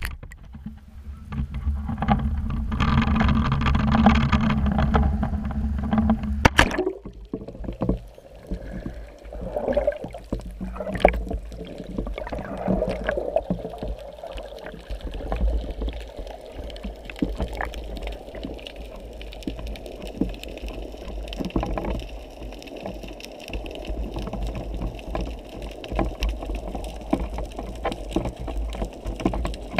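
A camera in its waterproof housing going from open air into the sea: a loud rushing noise for about six seconds, a sharp knock as it goes under, then muffled underwater sound with a low rumble and scattered clicks and knocks.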